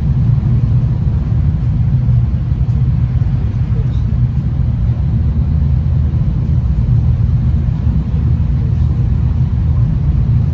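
V/Line diesel train running at steady speed, heard from inside the carriage: a constant low rumble of engine and wheels on the track.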